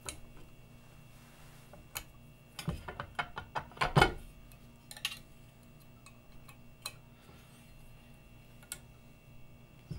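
Small metallic clicks and taps as an Allen key works the roller adjustment screws of a STEPCRAFT 2 CNC axis connector plate and the plate is handled in its aluminium track. Scattered single clicks, with a quick cluster of clicks and one louder knock about three to four seconds in.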